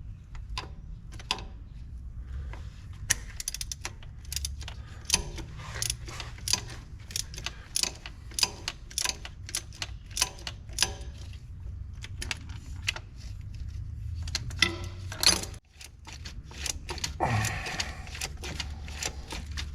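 Irregular metallic clicks and clinks of hand tools working on metal, over a steady low hum.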